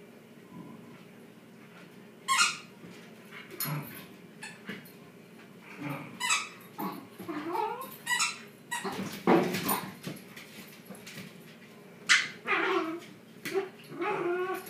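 Two Shiba Inus at play in a tug of war, giving short bursts of yips and whines whose pitch bends up and down, starting about two seconds in and coming in clusters.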